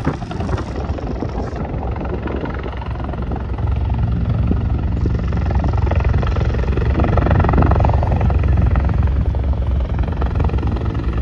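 Firefighting helicopter flying low, its rotor and turbine making a steady throbbing rumble that grows louder about a third of the way in.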